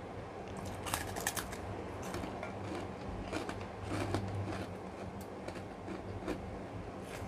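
Kerupuk (fried cracker) being bitten and chewed up close: a run of crisp crackling crunches, thickest in the first few seconds, over a low steady hum.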